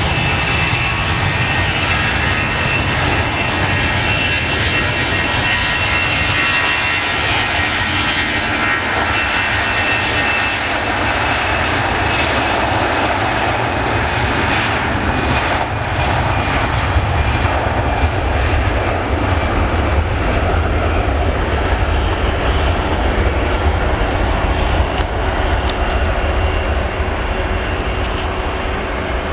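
Airbus A321's twin turbofan jet engines at take-off power during the take-off roll: loud, steady jet noise. High whining tones fade over the first ten seconds or so while the low rumble grows stronger.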